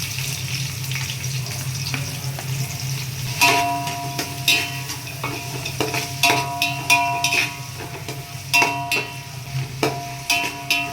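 Onions frying and sizzling in hot ghee in a metal pan, over a low steady hum. From about three seconds in, a metal spoon stirs them, striking and scraping the pan in repeated ringing clinks.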